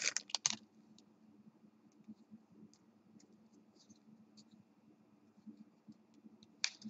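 Faint, scattered clicks and ticks of trading cards being flipped through and handled, over a low steady hum.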